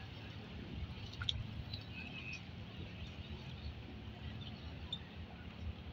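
Abra water taxi's diesel engine running with a low steady rumble, with a few faint high chirps and clicks over it.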